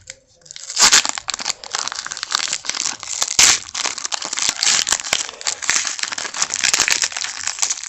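Wrapper of a trading card pack being torn open and crinkled by hand: a dense crackling that starts about a second in and keeps on, with two louder tears near the start and about three and a half seconds in.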